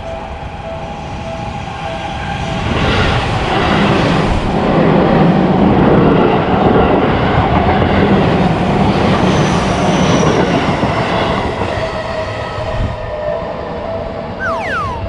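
Japanese level-crossing warning bell ringing in a steady, even repeat while a train passes. The train grows loud from about three seconds in, stays loud for several seconds with a rumbling clatter over the rails, then fades, leaving the bell ringing on.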